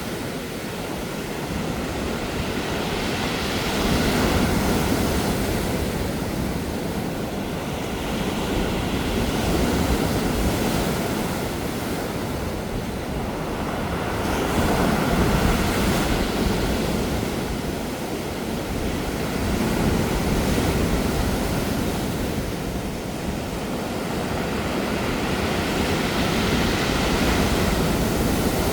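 Sea waves breaking on a pebble beach, rolling the stones as they wash in and out, with the surge swelling about every five to six seconds.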